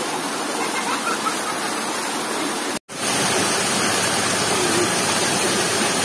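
Small rocky waterfall rushing over boulders: a steady, even hiss of falling water. It cuts out for an instant a little before halfway through, then comes back slightly louder.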